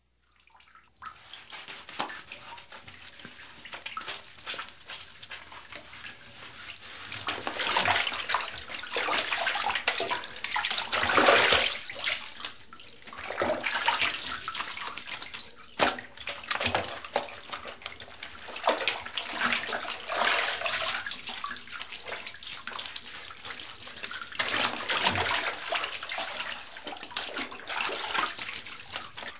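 Bath water splashing and sloshing as someone washes in a tub, in irregular surges with an occasional sharp splash. It is loudest about a third of the way in.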